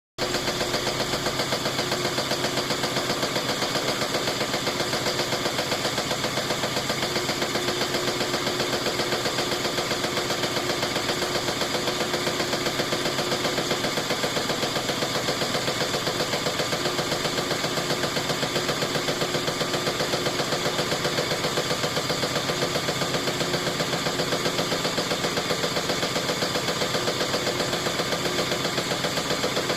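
GE washing machine on its spin cycle, making a rapid, even banging that repeats steadily without let-up. The owner connects the banging to a clutch shifter they have just replaced.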